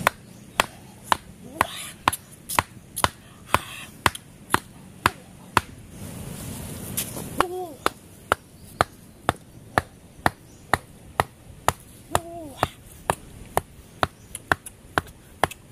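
A rock hammering the top of a wooden stake, driving it into sandy ground, in steady blows about two a second, with a break of a second or so midway.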